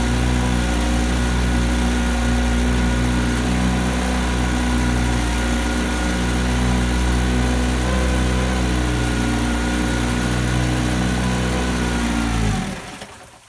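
Mercury KF5 Super 5 two-cylinder two-stroke outboard running steadily at low speed on its first start after years of sitting, with no sign of it pumping cooling water, which the owner takes to mean it needs a water pump. The engine stops suddenly near the end.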